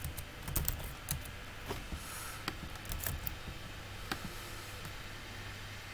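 Typing on a computer keyboard: a quick run of keystrokes over the first three seconds, then a few scattered clicks.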